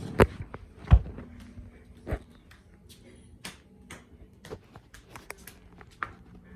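Irregular knocks and clicks: three louder thumps in the first two seconds, the loudest about a second in, then many lighter clicks. A faint steady hum runs under them after about a second.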